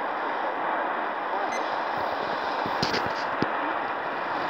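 Shortwave radio hiss on 11810 kHz, with the distant BBC World Service signal faded down and barely heard under the noise. A few short clicks come about three seconds in.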